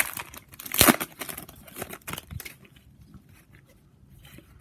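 A foil trading-card pack wrapper being torn open and crinkled, with one loud rip about a second in. After that comes quieter rustling as the cards are slid out.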